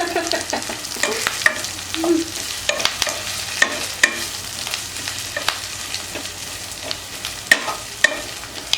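Onions, ginger-garlic paste and curry leaves sizzling in oil in a pan while a metal ladle stirs them, scraping and clinking sharply against the pan every second or so.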